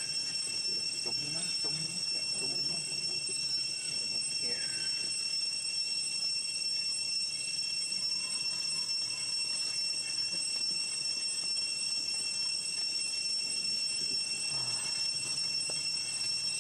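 Steady high-pitched insect drone that holds one unchanging pitch throughout, with a faint falling call about four and a half seconds in.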